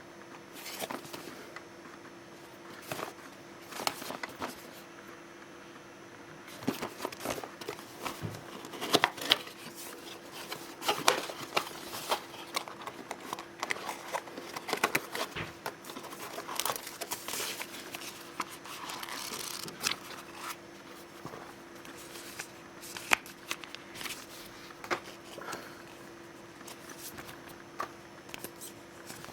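Unboxing noises: packaging being handled, with irregular crinkling and rustling of plastic and paper and sharp clicks and taps of cardboard, busiest in the middle stretch. A faint steady hum runs underneath.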